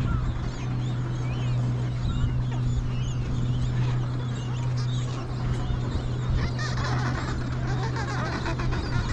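Adelie penguin colony calling: many short, high calls that rise and fall, getting thicker from about six and a half seconds in. Beneath them runs a steady low hum and a low rumble.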